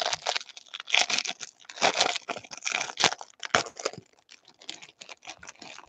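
Crinkling and tearing of the plastic wrapper around a stack of Topps baseball cards as it is pulled open, a dense crackle loudest in the first four seconds, then fainter scattered crackles.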